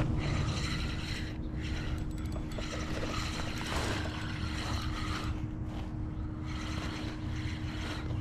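Fishing reel being cranked: a busy mechanical whirring and clicking of the reel's gears, over a steady low hum.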